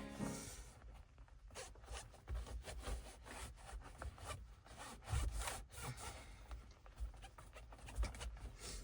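Quiet, irregular rubbing and scraping strokes of wiping across a film screen protector freshly laid on a touchscreen, with a few soft low knocks.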